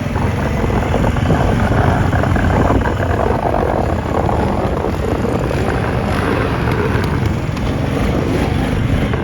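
Four-wheeler (ATV) engine running under load while plowing snow, with a steady rushing noise over the engine.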